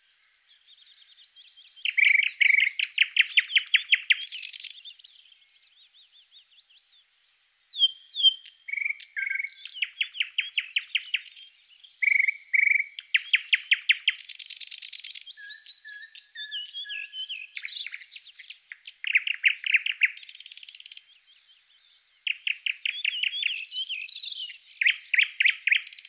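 Songbirds singing from a recorded nature-sound backdrop: several bouts of fast trills mixed with short chirps, separated by brief pauses.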